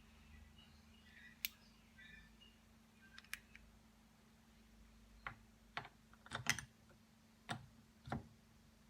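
Scattered sharp clicks and light taps, as of tools and small parts being handled, with a quick cluster about six seconds in.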